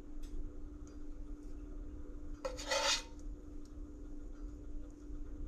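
Plastic slotted spatula scraping fish fillets out of a frying pan and onto a plate of rice: one short rasping scrape about halfway through, with light taps and a steady low hum underneath.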